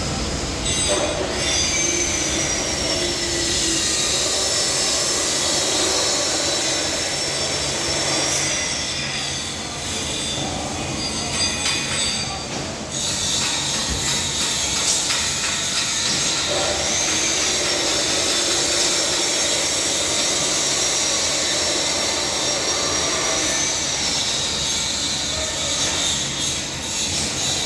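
Heavy machinery running steadily with a high metallic squeal that rises, holds for several seconds, then falls away, twice over.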